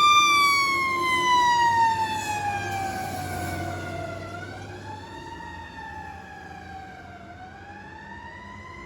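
A fire company's house siren holds a steady tone, then winds down in pitch over about four seconds. It swings up and down once more and starts rising again near the end, growing quieter throughout.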